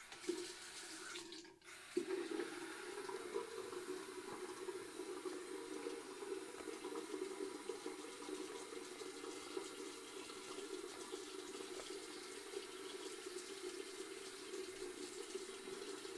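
Faucet running in a steady stream, water splashing into a glass and sink, with a short break about a second and a half in before it flows on.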